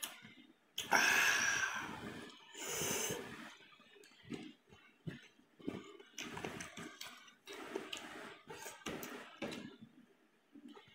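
Close-miked eating sounds: wet chewing and lip-smacking of goat-head curry and rice, with two longer, louder breathy slurps about one and three seconds in.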